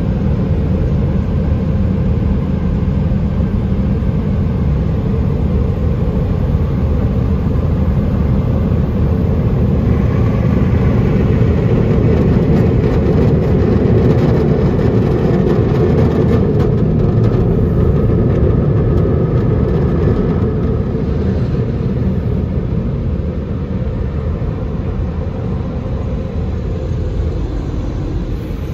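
Mark VII car wash dryer blowers running over the car, heard from inside the cabin: a loud, steady rush of air with a deep rumble, swelling a little midway and easing slightly near the end.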